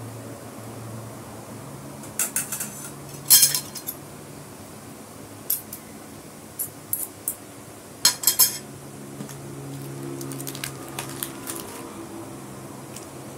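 Metal cutlery clinking against a glass bowl and a steel pot: a scatter of short, sharp clinks, the loudest a few seconds in and another cluster around the middle, over a low steady hum.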